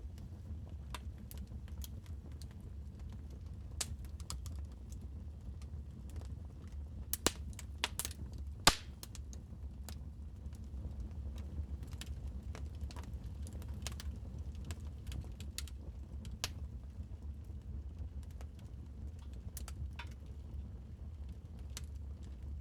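Wood fire crackling in a fireplace: scattered sharp pops and snaps over a steady low rumble of the flames, with a few louder pops about seven to nine seconds in.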